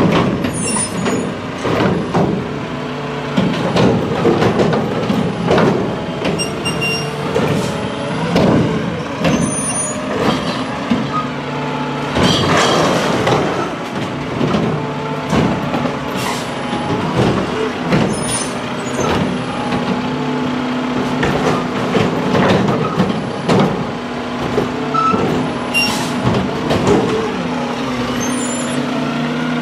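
Mack LR garbage truck's engine running as it creeps along the curb, with frequent clanks and rattles and short high squeals and hisses from its air brakes.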